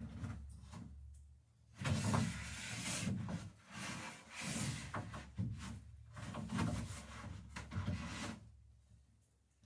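Wood scraping and rubbing against wood in a run of irregular strokes and knocks, the sound of a dory's timber planking being handled and worked.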